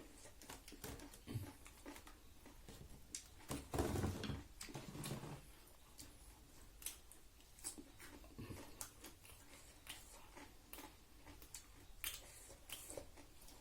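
Eating sounds: chewing, lip smacks and many small scattered clicks, with a louder, fuller burst about four seconds in.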